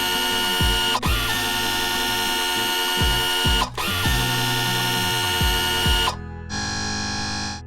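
Upbeat synth background music with a thudding beat; about six seconds in the music stops and a buzzing, ratchet-like mechanical sound effect takes over, ending just before the end.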